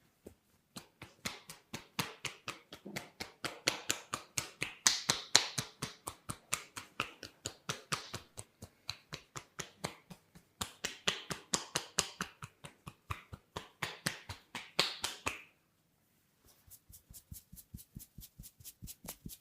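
Rapid percussive hand tapping of an Indian head massage: sharp, crisp strikes in a steady rhythm of about four a second. They stop about 15 seconds in and resume quieter after a pause of a second.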